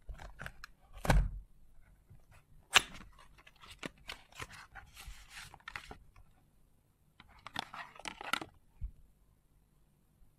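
A small cardboard cosmetics box being cut and torn open, then its paper leaflet pulled out and handled. There are sharp crackles and taps, the loudest about a second in and again near three seconds, followed by paper rustling.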